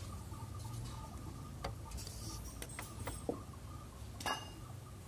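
Faint handling noise: a few light, scattered clicks and taps as the small timing belt is pulled off the engine's pulleys by hand, over a faint steady hum.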